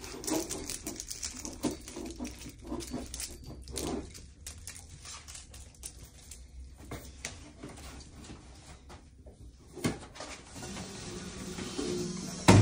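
Light plastic clicks and rattles of plug adapters and light-string cords being handled, with a sharper knock about ten seconds in and a louder thump near the end as a chair is moved.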